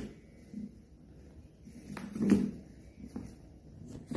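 A kitten batting a weighted wobble toy ball, the toy knocking and tipping on a hard floor: a few separate knocks, the loudest a little over two seconds in.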